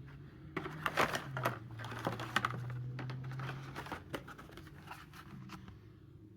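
Irregular clicks, taps and crinkling of Hot Wheels packaging being handled, over a low steady hum; the handling dies away after about four seconds.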